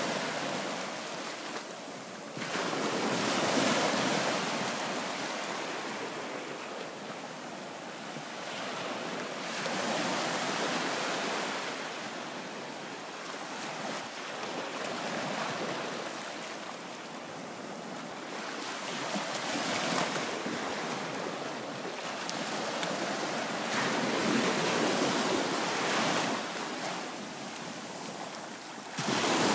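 Small waves breaking and washing up a sandy beach in the shallows, the surf swelling and easing every few seconds.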